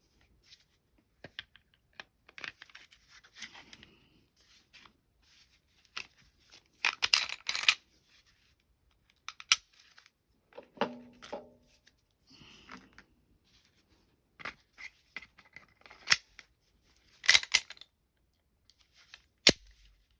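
Metal clicks and short scrapes of a Glock 19 pistol's parts being handled and put back together, with a few sharp snaps and a brief sliding scrape partway through.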